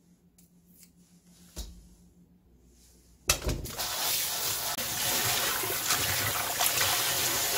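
A few faint knife clicks, then about three seconds in a kitchen tap starts running: a steady splashing of tap water onto vegetables in a stainless-steel colander in a steel sink as hands rinse them.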